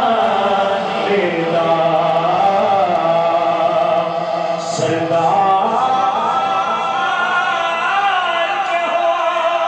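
A man's voice singing a naat (Urdu devotional praise of the Prophet) unaccompanied into a handheld microphone, drawing out long held notes that wind up and down in pitch.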